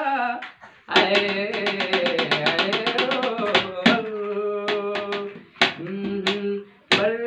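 A man singing a folk-style song, accompanied by quick hand beats on an upturned aluminium basin played as a drum, with hand claps. A fast run of beats comes about a second in, then slower, separate strikes.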